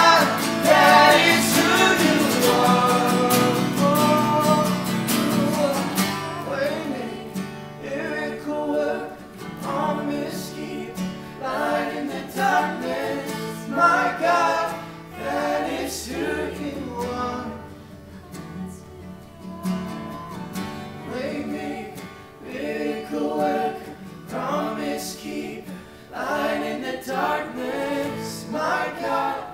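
Live acoustic worship music: acoustic guitar with a group of voices singing together. The loud, full singing on long held notes drops away about six seconds in, leaving quieter guitar and softer singing.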